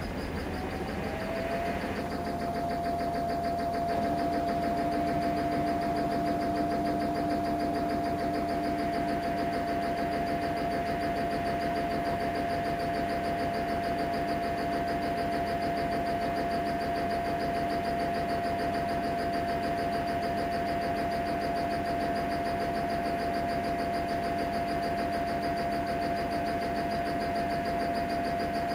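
Samsung Eco Bubble washing machine running just after its cycle starts: a steady whine that glides up and settles about a second in, over a constant mechanical hum, with a lower hum joining about four seconds in and fading around nine seconds.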